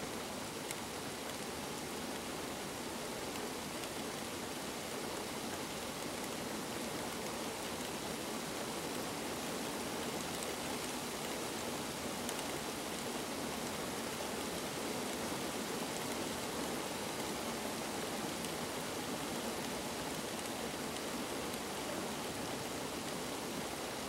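Steady rain falling on open water and reeds: an even hiss that holds the same level throughout.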